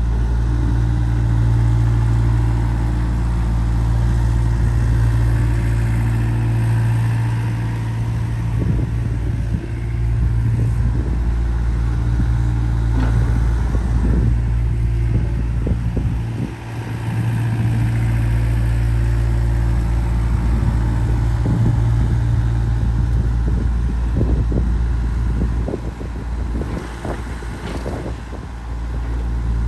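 Komatsu PC80MR excavator's diesel engine running steadily, with bouts of irregular clatter and knocks from the machine, and the engine note dipping briefly twice.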